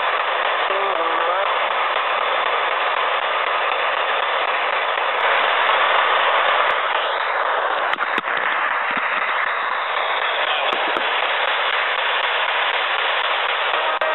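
Loud steady radio static hiss from a P-SB7 spirit box sweeping through radio frequencies, with a few sharp clicks about eight and eleven seconds in.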